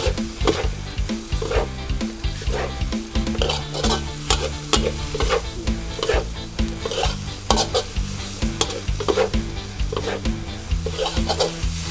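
Stir-frying in a wok: a metal spatula scrapes and clacks against the pan roughly every half second over a steady sizzle as wide rice noodles and Chinese kale are tossed.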